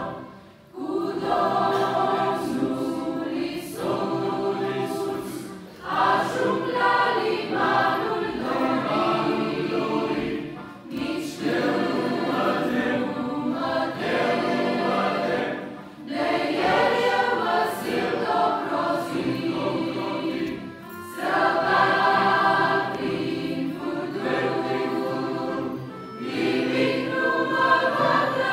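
Large mixed choir of men's and women's voices singing a hymn in several parts, in phrases of about five seconds with short breaks between them.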